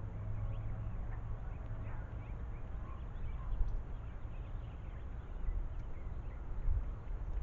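Outdoor ambience: a steady low rumble with faint, short bird chirps scattered through it.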